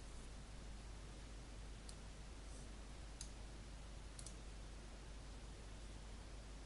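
Faint computer mouse button clicks, about four over a couple of seconds, one of them a quick double click, over a steady low hiss and hum.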